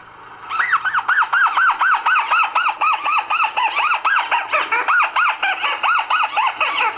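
Recorded watercock call played from a bird-lure cassette through a player's speaker: a loud, even series of short notes that rise and fall in pitch, about three a second, starting about half a second in.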